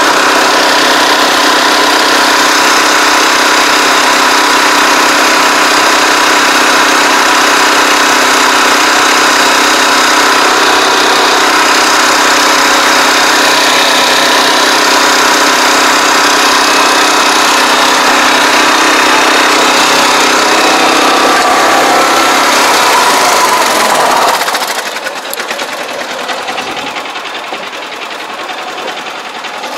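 Small engine of a ride-on tracked pesticide sprayer running steadily at high speed. About three-quarters of the way through the sound drops sharply to a quieter, lighter running note, as the engine is throttled back.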